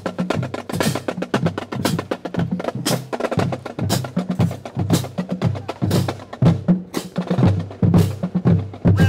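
A marching band drumline playing a cadence: fast, crisp snare drum strokes over low, pitched bass drums, with a heavy accent about once a second.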